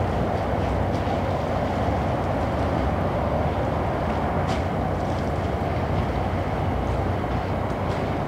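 Steady rumble of distant city noise, unchanging throughout, with a few faint ticks.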